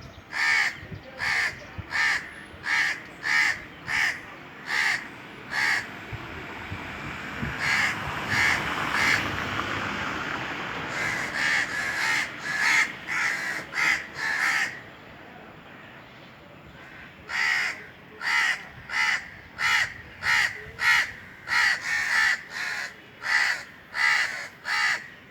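Indian crows cawing in long runs of harsh caws, about two a second, with a pause of a few seconds past the middle. A rushing noise swells and fades under the calls in the first half.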